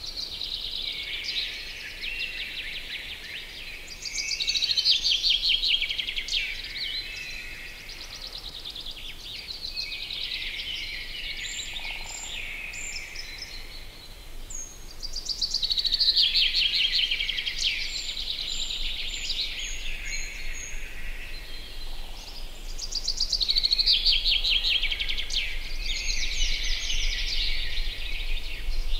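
Songbirds singing in a summer riverside chorus: fast, chattering song phrases that swell louder several times, with short, thin, high notes from another bird here and there.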